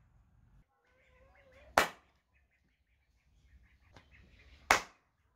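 Two sharp hand claps about three seconds apart, the trigger for an Arduino clap switch with an LM393 sound sensor module that toggles a lamp through a relay.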